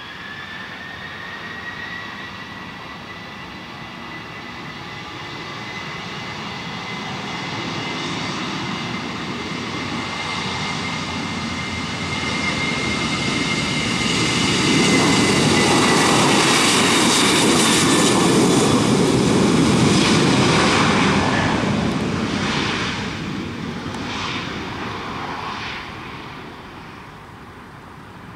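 Jet engines of a Boeing 737 airliner at takeoff power during its takeoff roll: a steady high whine over a rumble that swells as the plane passes, is loudest around the middle, then fades as it moves away and lifts off.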